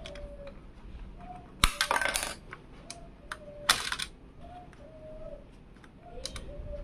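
Metal clicks and rattles from an LGA 1700 CPU socket's load plate and retention lever being worked by hand as a processor is fitted. A sharp click and rattle comes about a second and a half in, another near four seconds, and a lighter click near the end.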